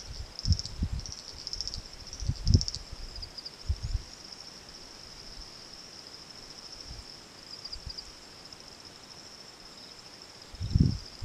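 Insects trilling in the bush: quick pulsed chirps for the first few seconds, then a steady high trill. Irregular low thumps and rumbles come through, loudest about two and a half seconds in and again near the end.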